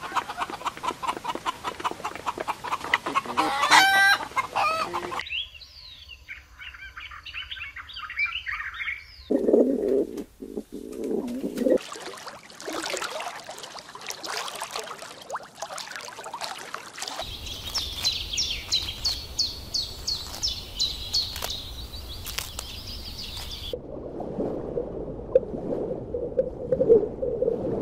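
A series of short farmyard clips of chickens clucking and flapping their wings, with small birds chirping. The sound changes abruptly several times, and clucking fills the last few seconds.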